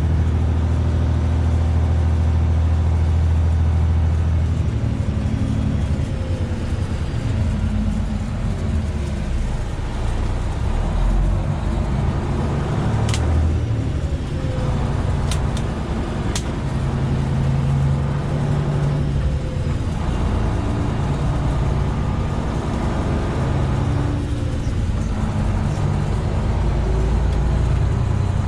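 Semi truck's diesel engine running under way, heard from inside the cab, its pitch shifting several times. Three short, sharp clicks a little under halfway through.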